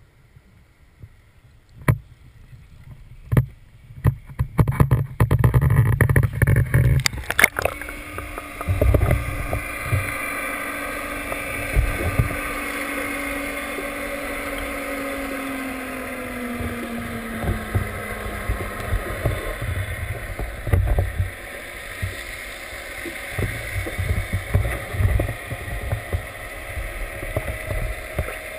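Knocks and thuds from the camera housing being handled against the boat, then about seven seconds in the sound turns muffled and underwater: water rushes past the GoPro housing with low thumps, and a faint hum slowly falls in pitch.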